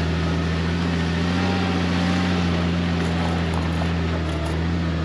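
Jeep TJ engine running steadily while driving slowly along the trail, a low drone that rises a little in pitch about a second in.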